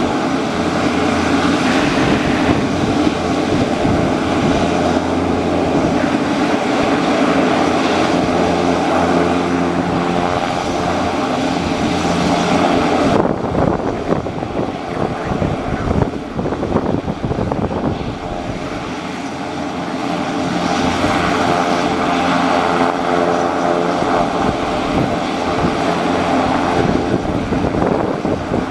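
Turbine aircraft running close by: a steady engine drone with a pitched whine and a rushing hiss. The hiss thins out about halfway through, then builds again.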